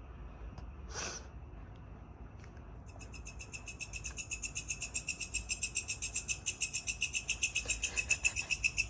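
A smartphone held beside a sleeper's head plays a high-pitched electronic trill through its speaker. The trill starts about three seconds in, pulses about six times a second, and grows steadily louder.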